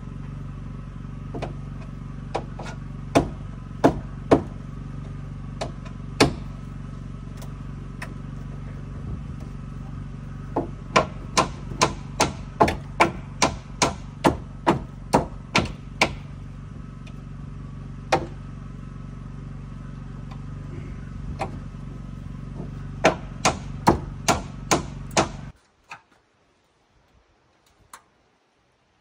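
Hammer blows on the wooden porch framing: a few scattered strikes, then a quick run of about two a second, and a faster run near the end, over a steady low hum. Everything cuts off suddenly a few seconds before the end.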